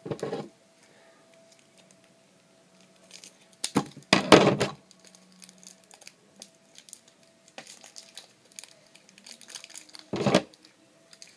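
Small plastic packaging being handled and crinkled, with scattered small clicks. There are three short louder rustling bursts: at the start, about four seconds in (the loudest) and near the end.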